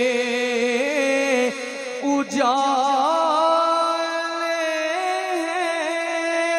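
A man singing a naat into a microphone, drawing out long held notes with wavering ornaments in the pitch; about two seconds in the voice breaks off briefly and swoops into a new, higher note that it holds to the end.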